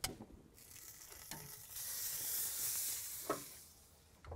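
Sizzling hiss from the open Big Green Egg kamado as the prime rib roast is lifted off the hot grate with tongs, swelling for about two seconds in the middle and then fading, after a sharp click at the start.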